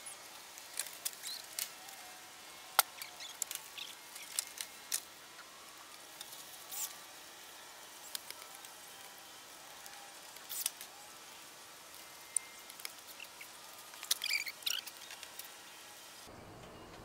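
Faint outdoor background: a steady hiss with scattered light clicks and taps, and a few short high chirps about fourteen seconds in.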